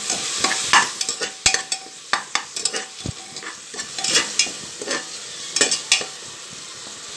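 Sliced onions and ginger-garlic paste sizzling in oil and ghee in a metal pressure cooker, a spoon stirring and scraping across the bottom of the pot in repeated strokes, with two sharp knocks of the spoon against the pot.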